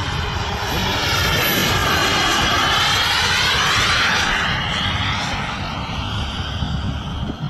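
Radio-controlled scale model jet flying past low with its landing gear down, its engine's rushing sound swelling to its loudest about three seconds in and then fading, with a sweeping, phasing quality as it passes.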